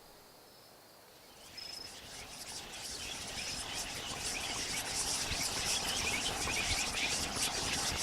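Night-time insect chorus, crickets chirping rapidly and densely. It fades in about a second and a half in and grows steadily louder.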